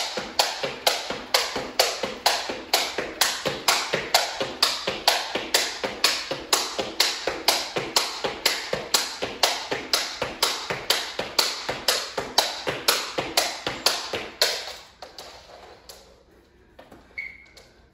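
Jump rope skipping on a hardwood floor: the rope slaps the floor and the trainers land in an even rhythm of about two and a half taps a second, stopping about fourteen seconds in. A short high beep sounds near the end.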